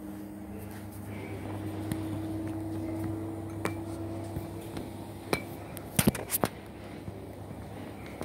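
Kitchen clatter: a few light clinks of glass and dishware, then a quick run of four sharp knocks about six seconds in, over a steady low hum.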